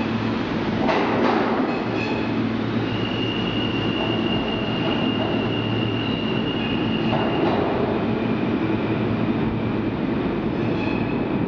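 Alstom R160A-2 subway train departing into the tunnel: a steady rumble of steel wheels on rail with a few clicks over rail joints. A high, steady wheel squeal comes in about three seconds in and stops a little past halfway.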